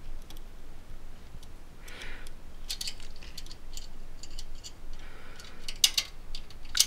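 Irregular small metallic clicks and ticks of a screwdriver and screw being worked into the graphics card's mounting bracket on a computer case, the screw going in awkwardly. The clicks come thicker from about two and a half seconds in, with a couple of soft rustles between them.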